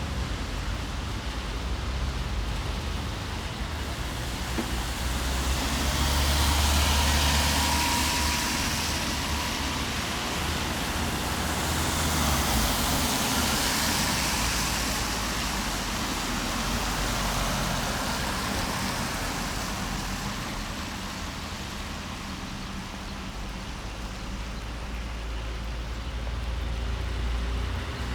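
Rain hissing steadily on a road, with a low rumble underneath. Twice the hiss swells and fades, about six and twelve seconds in, as vehicles pass on the wet surface.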